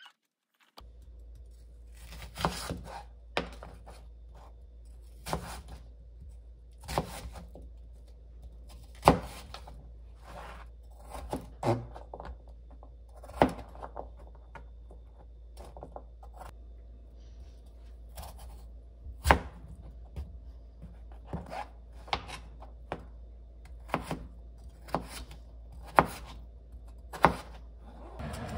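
Kitchen knife chopping carrot and potato on a plastic cutting board: sharp, irregular knocks of the blade striking the board, one every second or two, over a low steady hum.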